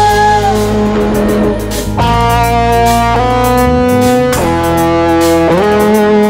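Music: an instrumental passage of long held notes, changing about once a second, over a steady beat.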